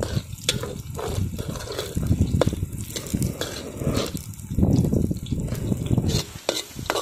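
Steel ladle stirring onions and green chillies frying in oil in an iron kadai: scattered sharp clicks and scrapes of the ladle on the pan over the sizzle of the oil. An uneven low rumble runs underneath and stops about six seconds in.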